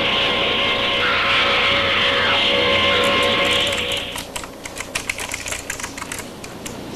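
Soundtrack of an old giant-grasshopper monster film: a loud, steady hissy din with a few held tones, which cuts off about four seconds in. Then a computer keyboard being typed on quickly, a rapid run of key clicks.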